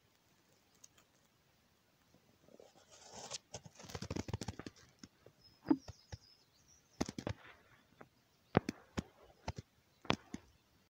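Camera handling noise: rustling for a couple of seconds, then a string of sharp clicks and knocks as the camera is moved and turned, with a faint high chirping about halfway through.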